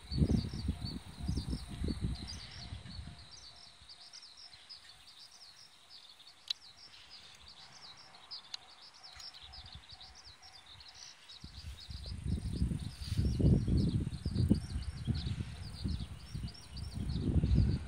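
Continuous rapid high chirping from birds or insects in the surroundings. Irregular low buffeting on the microphone sounds at the start and again from about eleven seconds in, and is the loudest sound.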